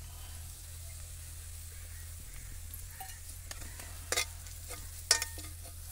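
Sliced onions and green chillies frying in oil in a heavy black kadai with freshly added chilli powder and turmeric, a quiet sizzle, while a metal spatula stirs and scrapes the pan, clinking against it several times in the second half.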